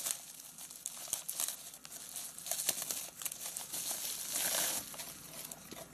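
Bubble wrap crinkling and rustling as hands unwrap a packed item, in irregular crackles, with a louder rustle about four and a half seconds in.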